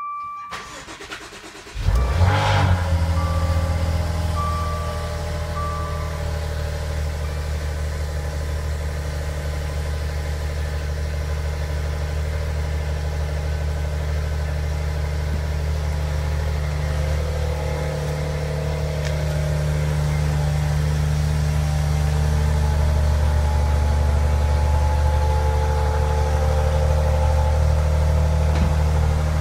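Maserati Ghibli SQ4's twin-turbo V6 cold start: the engine catches about two seconds in with a brief rev flare, then settles into a steady idle.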